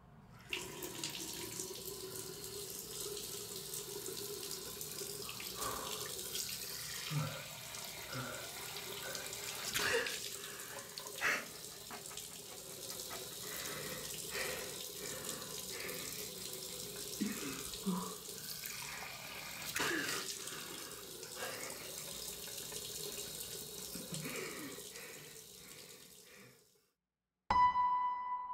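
Water running steadily from a tap into a sink, with scattered small knocks and clinks. It cuts off suddenly near the end, and after a moment of silence a single drip sounds with a short ringing tone.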